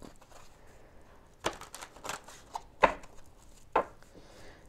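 Tarot cards being handled and drawn from the deck, with four sharp card snaps and taps spaced about a second apart.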